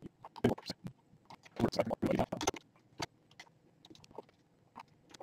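Scattered clicks from a computer mouse and keyboard, with a denser cluster of clicking about two seconds in.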